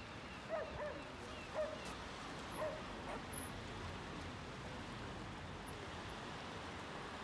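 A dog yapping about four times in quick succession in the first three seconds, over a steady hiss of wind and gently lapping sea water.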